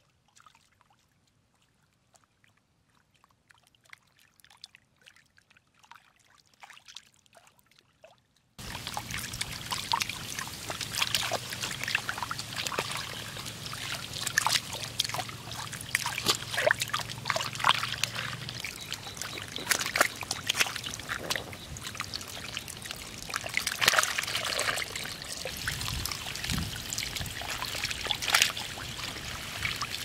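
Muddy rainwater running and pouring down a narrow mud channel into a basket fish trap, with many small splashes and spatters. Almost silent for the first eight seconds or so, then the water sound starts suddenly and goes on steadily.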